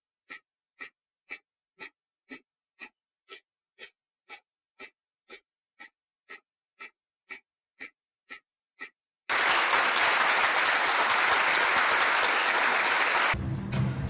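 Countdown timer sound effect ticking evenly, about two ticks a second. About nine seconds in, the ticking stops and a loud, steady rush of noise takes over for about four seconds.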